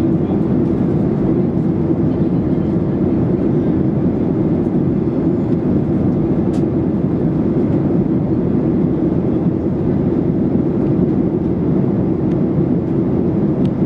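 Steady cabin noise of a Boeing 737-800 airliner in cruise: a constant drone of jet engines and airflow, with a faint click about six and a half seconds in.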